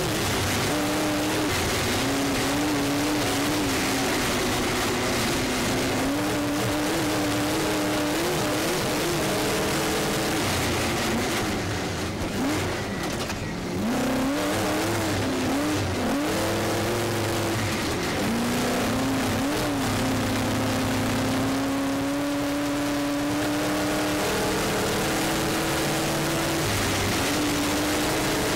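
Off-road racing trophy truck's engine heard onboard at high revs, its pitch repeatedly climbing and dropping with the throttle over a steady rush of road noise. About halfway through the engine sound drops away briefly before picking up again.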